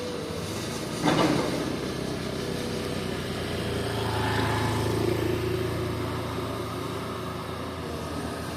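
Komatsu PC200 hydraulic excavator's six-cylinder diesel engine running steadily, with a sudden loud bang about a second in. Around the middle the engine and hydraulics work harder for a couple of seconds, with a whine, then settle back.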